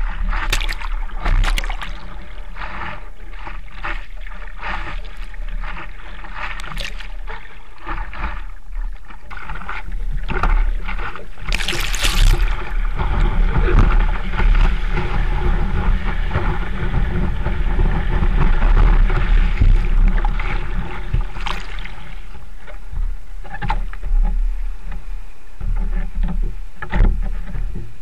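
Sea water sloshing and splashing against a surfboard-mounted camera, with a steady low rumble of water on the microphone. About twelve seconds in a loud splash comes as a breaking wave catches the board, followed by a steady rush of whitewater for about ten seconds.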